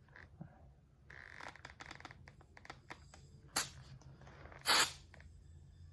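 Handling of an airsoft pistol magazine and gas can: small clicks and rustles, then two short sharp hisses of gas escaping, the second louder and longer, about three-quarters of the way through.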